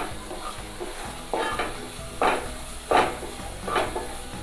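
Wooden spatula stirring and scraping spiced masala paste as it sautés in oil in a granite-coated non-stick pot, over a soft sizzle. There is a scrape about every three-quarters of a second.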